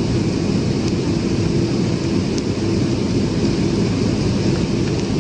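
Steady cabin noise of a passenger jet descending low on approach, heard from a window seat over the wing: a continuous rumble of engines and airflow with a steady hum through it.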